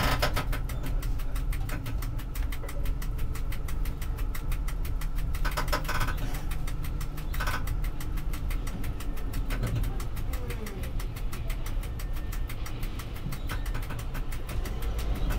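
Tram running along street track, heard from inside the driver's cab: a steady low motor and running-gear hum with a rapid, even clicking. There are two short higher-pitched bursts a little before the middle, and a falling whine near two-thirds of the way through.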